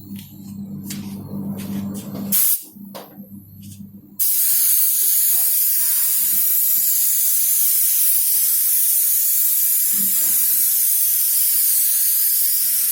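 A few clicks and knocks, then about four seconds in paint spraying starts: a loud, steady hiss that runs on without a break.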